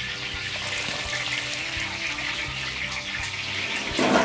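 Water running and splashing as chopped celery is rinsed in a metal basin, a steady hiss with a louder splash near the end as a handful of celery drops into the water.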